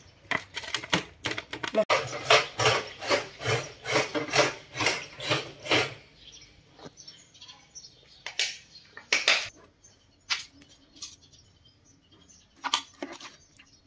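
A quick run of clicks and taps as hands work marinated snake pieces in a steel tray, about three or four a second. Then a few scattered metallic clinks.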